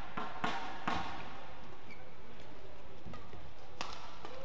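Badminton rackets striking the shuttlecock in a fast doubles rally: a few sharp hits in the first second, a lull, then another hit near the end, over the steady hum of an indoor arena.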